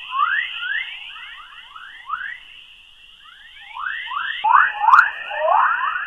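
The 'sound of Earth': electromagnetic plasma waves around Earth, recorded by a NASA spacecraft's plasma-wave antenna and converted into audible sound. It is a stream of rising chirps, several a second, over a steady high hiss, and it gets louder and denser about four seconds in.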